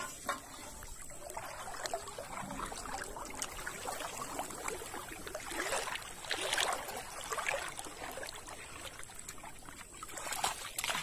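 River water sloshing and splashing around a person wading chest-deep and pushing a floating aluminium pot, with louder splashes about two-thirds of the way in. Near the end water pours and splashes as a plastic bottle trap is pulled out of the water.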